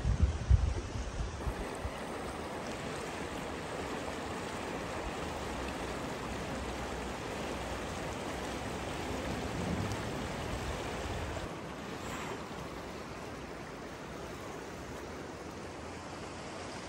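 A Tian Shan river running steadily. A few low thumps sound in the first two seconds.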